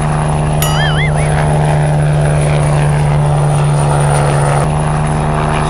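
Helicopter sound: a loud, steady drone of rotor and engine with a high whine over it. A brief warbling whistle sounds about a second in.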